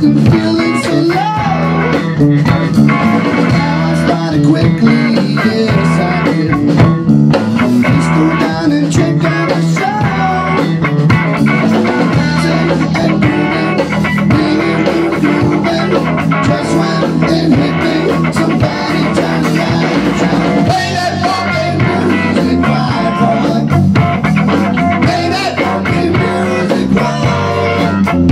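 Rock band playing live through amplifiers: electric guitar and electric bass over a drum kit, in a steady rock groove.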